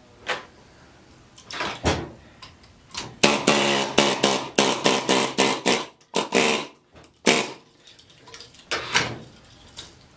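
Pneumatic air chisel hammering against a steel electric-motor stator, cutting out the copper windings. It runs in short bursts of air: the longest, a rapid buzzing hammer lasting nearly three seconds, starts about three seconds in, followed by several briefer bursts.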